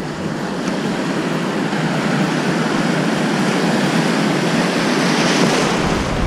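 Surf breaking and whitewater rushing around a paddleboard: a steady, loud rush that builds and peaks just before the end.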